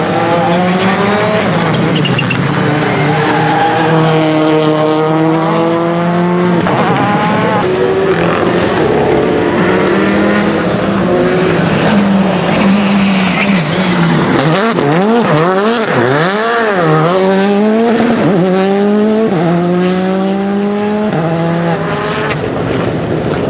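Rally car engine driven hard, climbing in revs and dropping back with each gear change. Around the middle the revs swing rapidly up and down several times before climbing steadily again.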